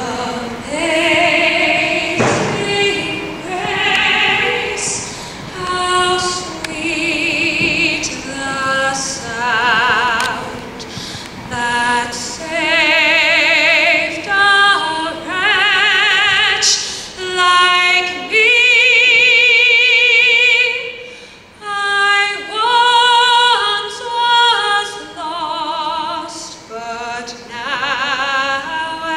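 A young woman singing solo into a microphone, in sung phrases with vibrato on the held notes. The longest held note comes about two-thirds of the way through.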